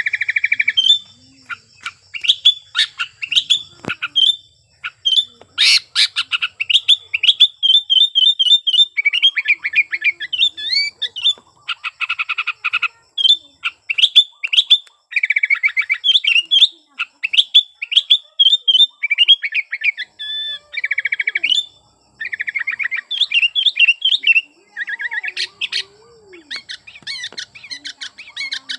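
Sooty-headed bulbul (kutilang) singing in rapid bursts of clear chirps and fast trills, with a harsher buzzy call about twelve seconds in. This is the loud, excited song of a bird in breeding condition, used to provoke rival bulbuls into calling.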